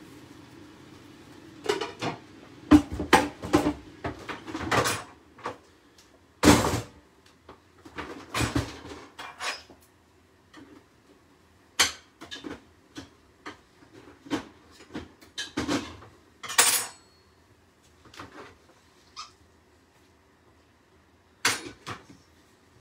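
Kitchen clatter of a frying pan and utensils being handled and set down: irregular knocks and clinks, the loudest in the first few seconds.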